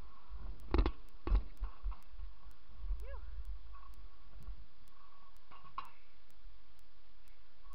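Stunt scooter rolling over skatepark ramps: a low rumble of the wheels, with two sharp knocks about a second in as the scooter hits the ramp, a short squeak near the middle and a smaller knock near the end. A faint, evenly spaced ticking runs underneath.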